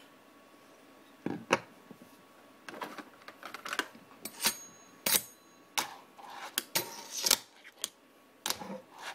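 Irregular sharp clicks and knocks from a small metal fingerboard rail and its legs being handled and set down on a wooden desk. One knock about four and a half seconds in rings briefly.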